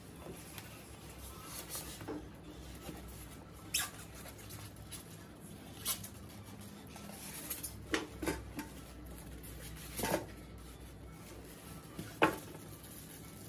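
Clear plastic wrap crinkling and styrofoam packing squeaking as an electric grill base is handled and lifted out of its box, with a few sharp crackles, the loudest near the end.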